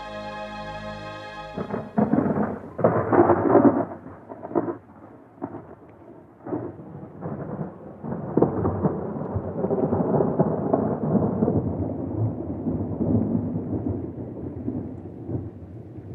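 A held musical chord stops about a second and a half in, and a thunderstorm takes over. Loud thunder claps come around two to four seconds in, then thunder rolls on with rain, slowly dying down.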